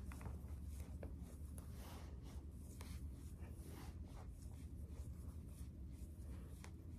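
Faint, irregular rustling and rubbing of synthetic braiding hair being twisted and wrapped around natural hair by hand, over a steady low hum.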